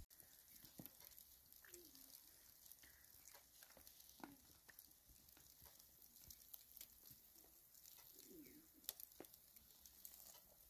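Faint crackle and sizzle of chicken kebabs grilling over a charcoal bed, with scattered small pops.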